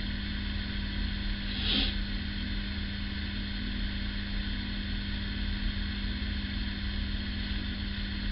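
Steady background hum with a constant low tone, and one brief soft hiss about two seconds in.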